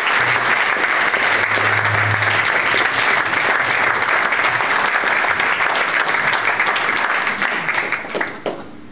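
Audience applauding: dense, steady clapping that thins out and stops about eight seconds in.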